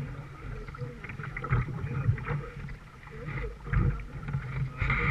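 Wooden canoe paddle stroking through river water, with the splash and swirl of each stroke and a few soft knocks on the canoe.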